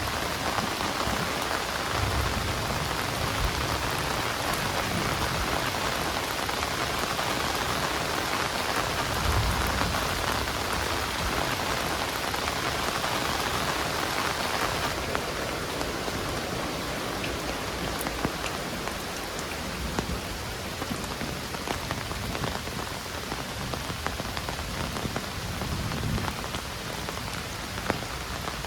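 Heavy rain falling steadily, a dense hiss of drops hitting surfaces with scattered sharper drop ticks. A few brief low rumbles come and go under it.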